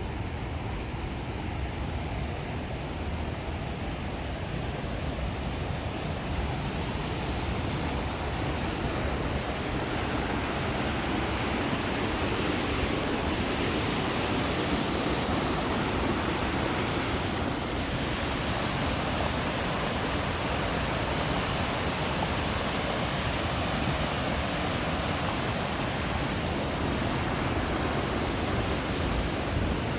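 Harajiri Falls, a waterfall, giving a steady, unbroken rush of falling water that grows a little louder about ten seconds in.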